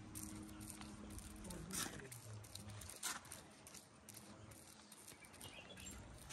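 Paintbrush strokes spreading a clear finish over a wooden table top: faint, irregular swishes and scrapes. A low steady hum runs under the first couple of seconds.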